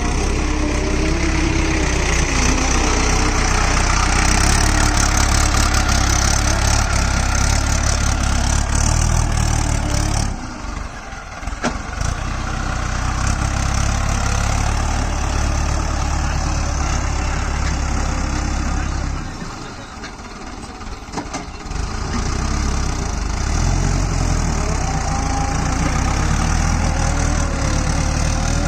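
Mahindra Arjun 555 tractor's diesel engine running steadily while pulling a loaded trolley. The engine sound dips twice for a second or two, about a third of the way in and again past the middle.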